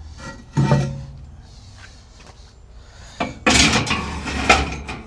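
Metal grill grates clanking as they are handled and lifted out of a kamado grill: one sharp clank with a short ring about half a second in, then a rapid run of metal clatter from about three and a half seconds in.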